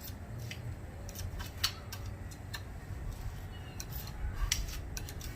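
Old silicone sealant being cut and pulled off the glass seam of a fish tank: scattered light clicks and scrapes at an uneven pace.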